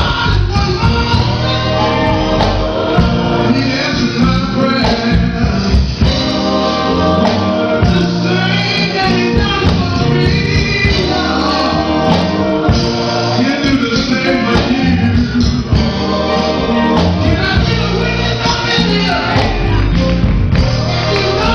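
Gospel song with group vocals and a band, with a tambourine keeping time.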